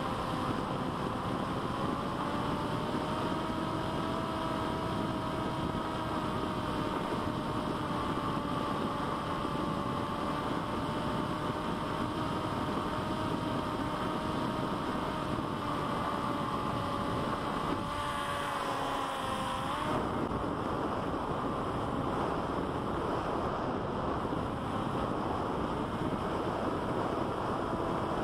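Electric motor of a C1 Chaser FPV flying wing whining steadily under wind rush. About 18 seconds in its pitch slides down and the motor cuts out, leaving only the rush of wind as the wing glides.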